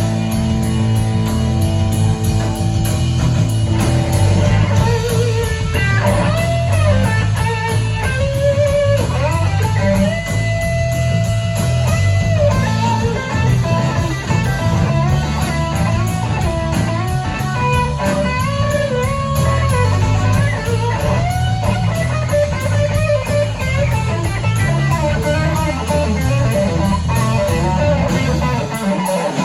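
Live blues-rock band in an instrumental section: a lead electric guitar plays held notes that bend and slide between pitches, over a steady bass and drum groove.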